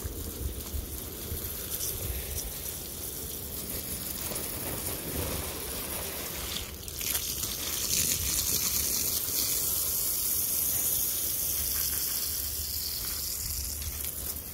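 Water spraying onto wet mulch and soil in garden beds, a steady hiss that grows louder about eight seconds in, as the ground is soaked to get grass growing.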